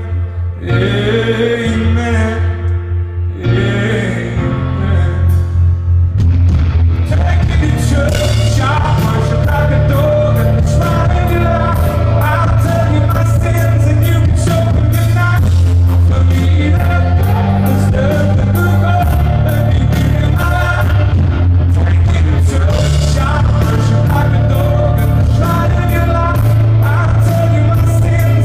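Live rock band playing a song with a male lead vocal: sparse at first, then bass, drums, guitar and keyboards come in fully a few seconds in and carry on at a steady loud level.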